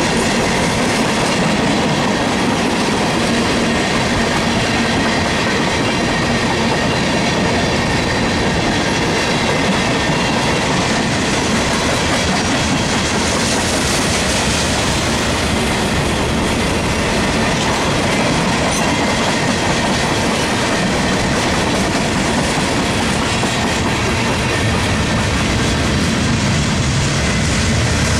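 Freight cars of a Canadian National train rolling past, tank cars then gondolas, their steel wheels running steadily over the rails with a faint high ringing.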